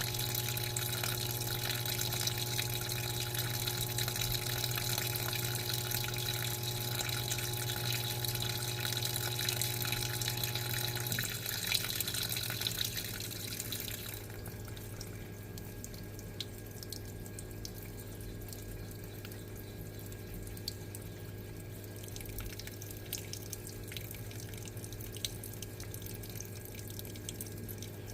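Water running inside an Electrolux LTA15 washing machine over a steady machine hum. The hum changes about 11 seconds in, and the rushing water stops about 14 seconds in, leaving a quieter hum with small drips.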